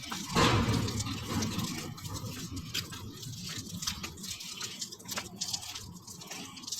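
Rain falling, with many scattered drops ticking close by over a steady hiss. A louder rushing noise swells in the first second or so.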